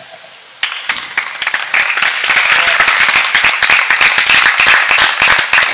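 A small audience applauding, starting suddenly about half a second in after a brief quiet and going on steadily.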